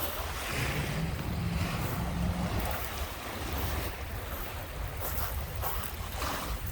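Wind buffeting the microphone with a low rumble, over lake waves washing onto the beach.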